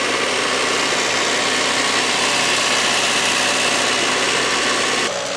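Skid steer engine running steadily under work, a loud, dense mechanical noise that eases off slightly just before the end.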